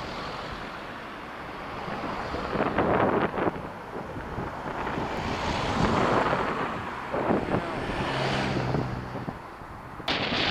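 Motor vehicles overtaking close by, their tyre and engine noise swelling and fading several times, loudest about six seconds in as a van passes. Steady wind buffets the bike-mounted camera's microphone throughout. The sound changes abruptly near the end.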